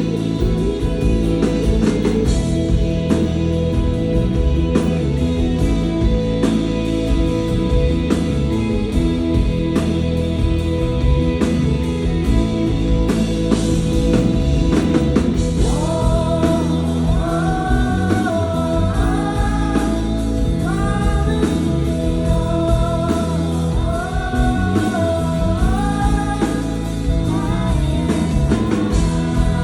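Live rock band playing with electric guitar and drum kit; a sung melody line comes in about halfway and carries on over the band.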